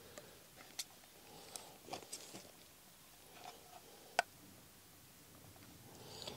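Small plastic handling noises: corrugated electrical conduit and a plastic junction box being worked together, a scattering of faint clicks and crackles with one sharp click about four seconds in.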